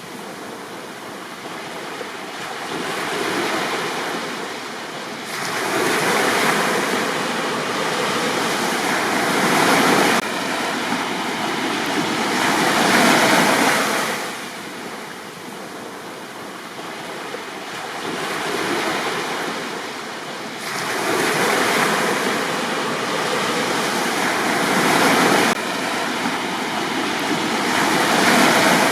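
Sea waves breaking and washing up on a beach, the surf swelling and fading in repeated surges every few seconds.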